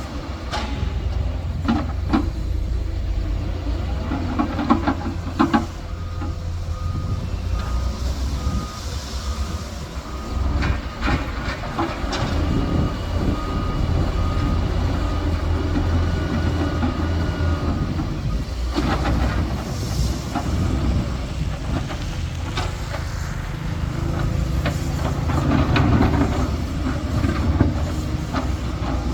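Heavy construction machinery, an excavator working with a dump truck: a deep, steady diesel engine rumble with repeated metal clanks and knocks. A pulsing beep alarm sounds from about six seconds in until about eighteen seconds in.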